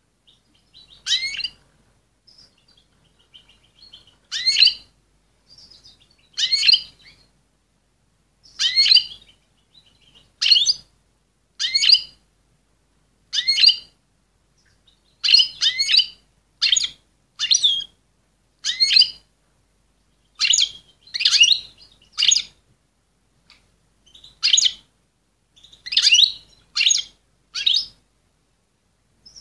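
Female European goldfinch in breeding condition calling: short, sharp, rising call notes repeated every second or two, sometimes in quick runs of two or three.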